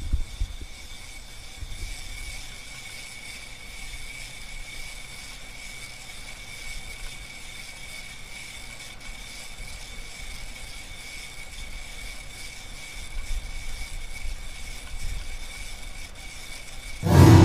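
Steady room tone: a hiss with a faint high-pitched whine and occasional low rumbles. Near the end a loud, low, eerie music chord comes in suddenly.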